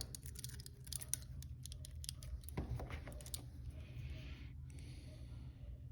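Small metal clicks and scrapes as the lock of a pair of Peerless handcuffs is worked, with the double lock set. The clicking comes thick in the first few seconds, followed by a couple of breaths near the end.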